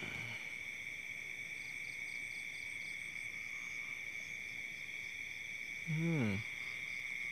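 Steady night chorus of crickets and other insects, several constant high-pitched trills, with a faint pulsing chirp about four times a second around two to three seconds in. About six seconds in there is one brief low, voice-like grunt, the loudest sound.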